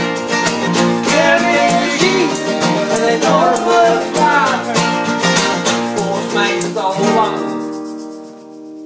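Acoustic guitars strumming with an egg shaker keeping a steady rhythm under a singing voice. About seven seconds in, the playing stops on one chord that rings on and fades away.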